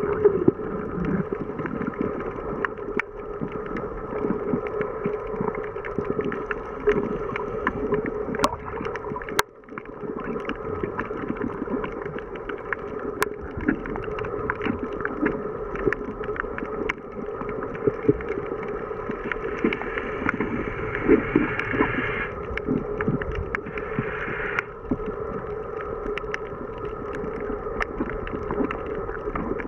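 Underwater ambience picked up by a camera in its waterproof housing: a steady motor drone carried through the water, with many scattered small crackling clicks. The drone briefly grows brighter twice, about two-thirds of the way through.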